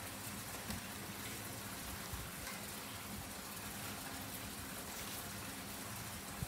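Steady hiss of background noise with a faint low hum, broken by a few soft taps.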